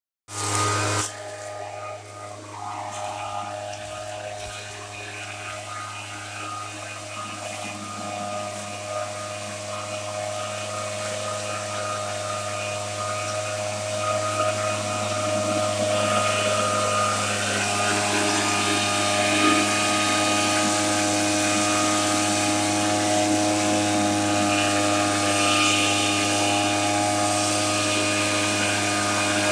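Motorized backpack mist-blower sprayer running steadily at high speed: its small two-stroke engine and fan make a steady drone while it blows spray mist through the nozzle. It grows gradually louder.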